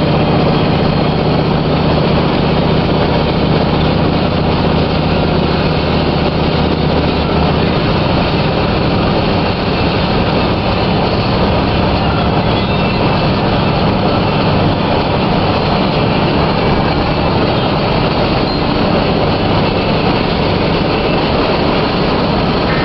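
Steady road and engine noise inside a moving car's cabin, with a low engine hum that weakens about eight seconds in.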